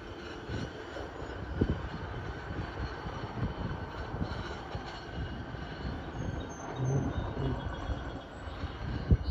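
A train passing close by: a steady rumble with irregular knocks from the wheels and cars, the loudest about a second and a half in and again near the end.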